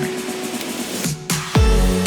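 Electronic dance music. Held synth notes thin out briefly about a second in, then a heavy bass beat with falling bass notes comes in hard near the end.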